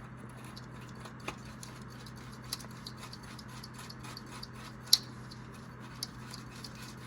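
Small irregular clicks and ticks as a new spin-on oil filter is threaded onto the engine by hand, with one sharper click about five seconds in, over a steady low hum.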